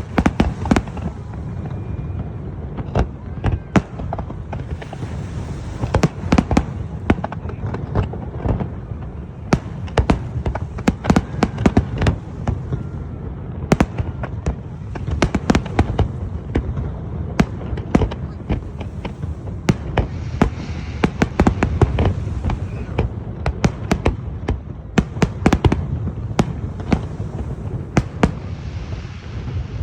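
Fireworks display: dozens of sharp bangs from bursting shells, coming irregularly and often in quick clusters, over a continuous low rumble, with stretches of high hissing between them.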